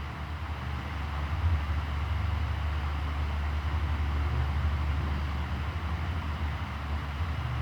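Classic electric fan running steadily: a low, even motor hum under a constant whoosh of moving air.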